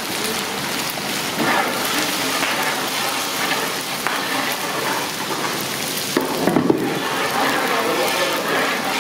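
Dried red chillies frying in a large pot of hot oil, sizzling steadily as a ladle stirs them, with a brief louder clatter a little past halfway.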